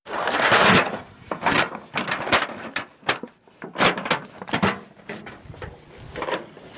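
Aluminium foil covers on catering pans crinkling and rustling as the pans are handled, with irregular crackles and knocks against the table. The loudest rustle comes right at the start.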